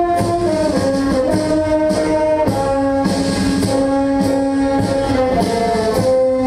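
Brass orchestra playing a melody in long held notes that step from pitch to pitch, with regular percussion strokes marking the beat.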